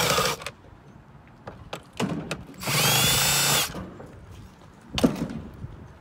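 Milwaukee cordless drill-driver backing out the screws of a car's plastic air filter housing: a brief run at the start and a second run of about a second, with a steady motor whine, about three seconds in. A few sharp clicks in between, one near the end.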